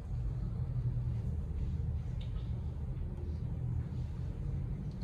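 Steady low room rumble, with a few faint small clicks of plastic action-figure parts being handled.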